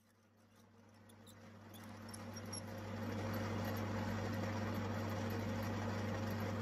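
Metal lathe running with a steady motor hum while a twist drill in the tailstock chuck bores out a stainless steel nut held in the four-jaw chuck. The sound fades in over the first few seconds, then holds steady.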